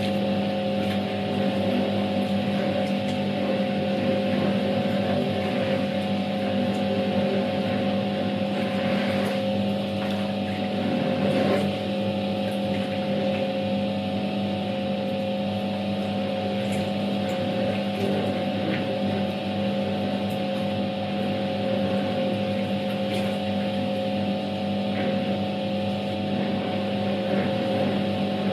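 Światowit M4 impeller washing machine running a wash: its EDA SED-110-4 motor hums steadily while the impeller churns water and clothes round in the tub, a constant swishing over the hum.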